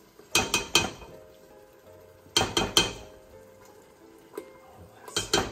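A utensil clacking and scraping against a frying pan while stirring thick chili paste, in three short groups of knocks, the last a quicker run near the end.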